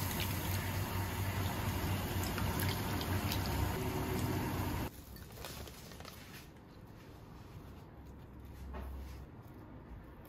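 A steady rushing kitchen noise with a low hum, like running water or an extractor fan, cuts off abruptly about five seconds in. Then come faint light clicks and rustles as tempura bits are sprinkled and nori strips are laid on bowls of udon.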